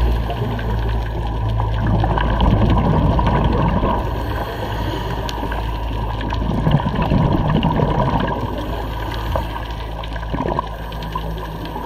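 Underwater scuba sound heard through a camera: muffled gurgling of divers' exhaled bubbles over a steady low rumble, rising and falling in irregular surges.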